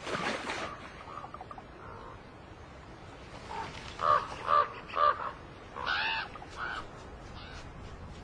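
Common ravens calling: three loud croaking calls in quick succession about four seconds in, then two more around six seconds.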